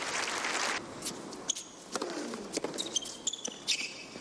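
Arena crowd applauding, dying away about a second in, then a few sharp tennis ball knocks and brief high shoe squeaks on the hard court.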